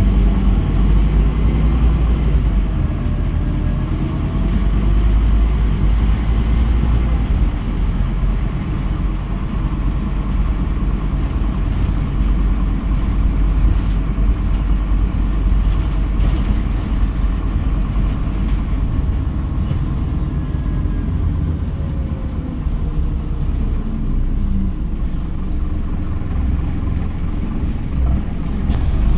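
Scania NewOmnicity city bus heard from inside the passenger cabin while under way: a steady low engine and road rumble, with a faint whine that rises and falls a few times.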